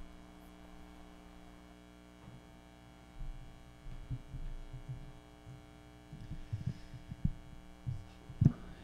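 Steady electrical mains hum from the sound system. Soft, irregular low thuds of footsteps on a stage start about two seconds in, and a louder bump of a handheld microphone being handled comes near the end.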